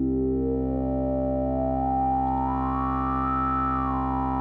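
Modular synthesizer drone of two pulse-wave oscillators two octaves apart (4-foot and 16-foot), mixed by a Stroh Dual Gene Splicer and run through the low-pass output of a Synthesizers.com Q107 state variable filter. The filter cutoff is swept by hand, so a resonant peak rises slowly in pitch and eases back down near the end.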